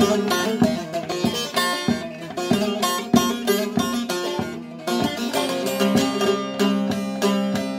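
Carved mulberry-wood bağlama (Turkish long-necked saz) played solo with a plectrum: a quick run of picked notes, which about five seconds in settles over sustained ringing drone notes while the picking continues.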